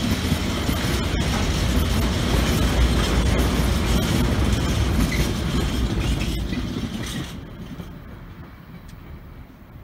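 Freight train of tank wagons rolling past, a steady rumble of wheels on the rails with a few sharp clicks over the rail joints. The noise dies away about seven seconds in as the last wagon passes.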